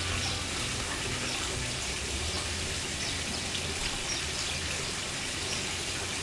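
Steady, even watery hiss, rain-like, with no distinct individual events.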